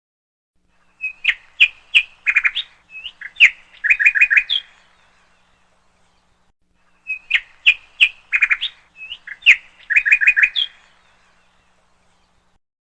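A small bird's song: a quick run of chirps and trills. The same phrase of about four seconds is heard twice, the second a near-exact repeat of the first.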